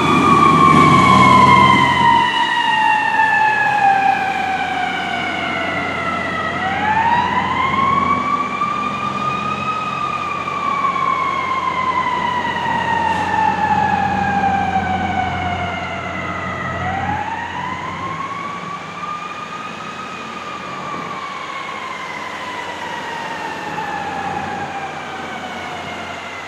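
Fire engine siren in a slow wail, fading as the truck drives away. The pitch climbs for about three seconds and slides down for about seven, three times, over a diesel engine rumble that is loudest at the start.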